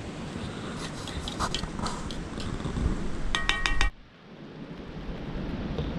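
Metal utensil clinking against cookware: scattered light clinks, then a quick run of ringing metallic taps that cuts off suddenly about four seconds in, over a steady hiss of wind.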